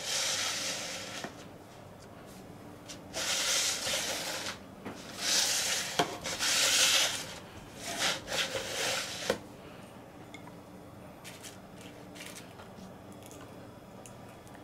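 Rustling and scraping handling noise at a table, in four bursts of a second or two each, with a couple of sharp clicks, then quiet room background for the last few seconds.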